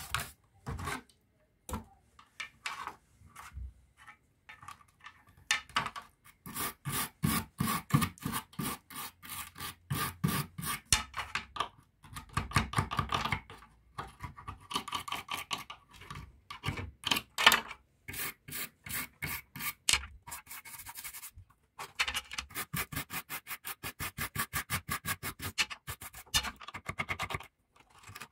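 Rapid, repeated scraping strokes in runs of several a second with short pauses: rust and grime being scraped off a small rusty metal bracket of the pump with a small screwdriver tip, with wire-brush scrubbing on the pump's plastic housing near the start.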